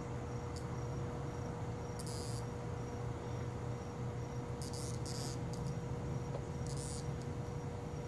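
Insect calls: a steady, faint, pulsing high chirp, broken by short high buzzes about two seconds in, twice around five seconds and once near seven seconds, over a low steady hum.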